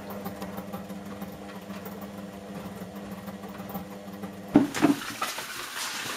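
Whirlpool washing machine running, its motor giving a steady hum, then a sudden louder clunk about four and a half seconds in, after which the sound turns noisier.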